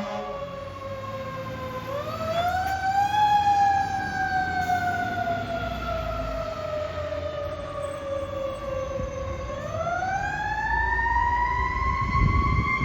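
Fire truck's Federal Q mechanical siren winding up, coasting slowly down, then winding up again in a rising and falling wail. The truck's engine rumbles underneath, heavier near the end, and an air horn blast cuts off right at the start.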